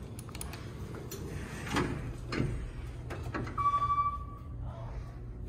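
Passenger traction elevator arriving: the car doors slide open with a few light knocks, and about three and a half seconds in a single electronic hall-lantern chime sounds, one steady ding lasting about a second. A low steady hum runs underneath.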